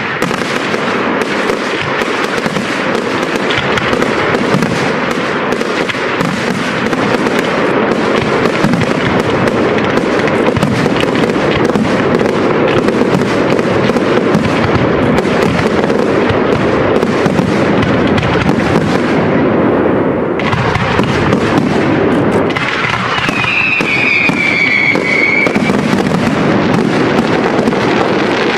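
Fireworks display: a dense, continuous barrage of bangs and crackling shells. About 23 seconds in a whistling effect sounds for a few seconds, falling slightly in pitch.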